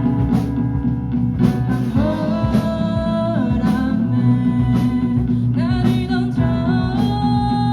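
Live pop-rock band playing: drum beat, bass, guitar and keyboard under a sung melody.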